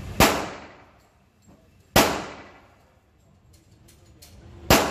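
Three pistol shots a couple of seconds apart, each a sharp crack followed by a ringing tail that dies away.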